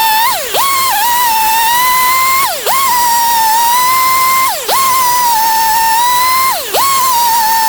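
Gas chainsaw running at high revs, a steady high whine whose pitch dips sharply and recovers about every two seconds.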